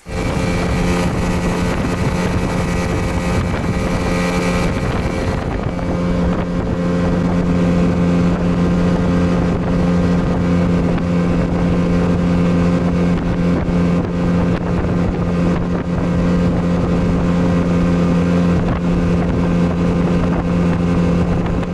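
Yamaha 8 two-stroke outboard motor running flat out at a steady pitch, pushing the boat at a constant top speed on 95-octane petrol, growing slightly louder about five seconds in.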